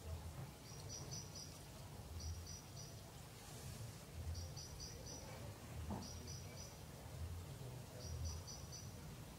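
An insect chirping: short high-pitched chirps in quick groups of three or four, the groups repeating about every second and a half to two seconds, over a low rumble that swells now and then.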